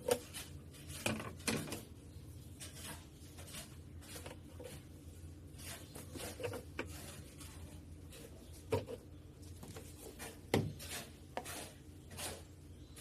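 Scattered light clicks, taps and rustles of small objects being handled, with a few sharper knocks about a second in, near nine seconds and near eleven seconds, over a faint steady low hum.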